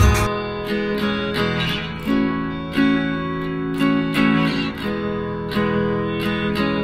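Background music: an acoustic guitar strumming chords in a steady rhythm, starting just after the previous audio cuts off.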